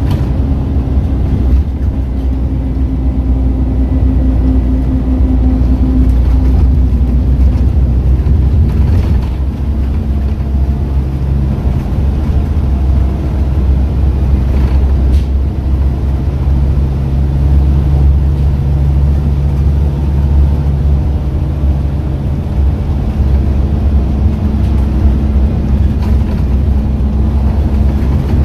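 Scania N230UD double-decker bus running at road speed, heard from inside the passenger cabin: its diesel engine and ZF automatic gearbox drone steadily under road and tyre noise. The engine note changes pitch about nine seconds in.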